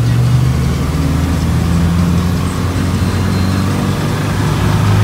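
Danfo minibus engine running at driving speed, heard from inside the cabin: a steady low drone with road noise.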